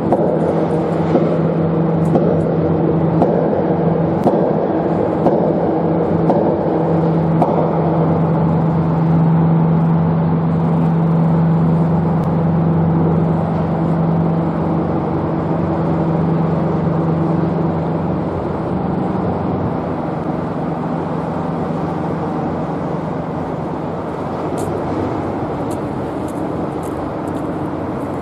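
A steady engine drone with a constant low hum over a rumbling background, the hum fading after about eighteen seconds.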